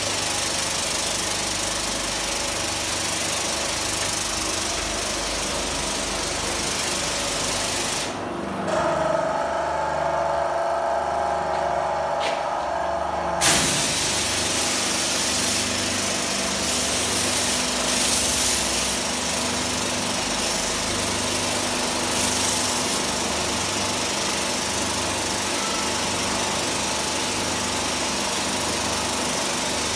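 Airless paint sprayer running: the pump's steady mechanical pulsing under the hiss of paint spraying from the gun. About eight seconds in the hiss stops for some five seconds, leaving a steady hum, then comes back.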